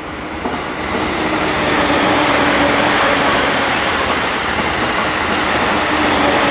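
Green-and-orange-striped JR commuter train running past at speed on the adjacent track: steady wheel-on-rail and running noise with a faint motor hum. It builds up over the first two seconds, then holds loud.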